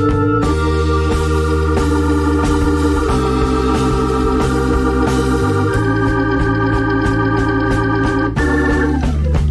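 Background music: sustained organ-like chords over a bass line, with the chord changing every two to three seconds.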